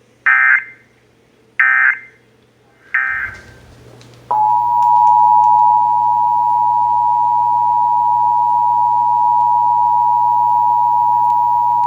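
Emergency Alert System tones. Three short buzzy digital data bursts, each about a third of a second, come about a second and a half apart; their timing after the spoken test's end fits the end-of-message code. About a second later the loud, steady EAS two-tone attention signal starts and holds unchanged.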